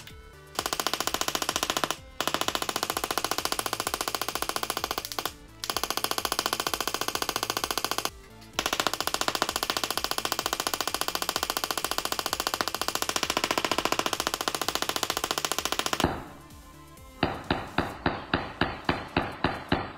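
Handheld Tesla coil gun firing arcs: a fast, continuous crackling buzz in several long bursts broken by short pauses, then, about three seconds from the end, a slower train of separate sharp spark snaps, about six a second, as the frequency setting is lowered.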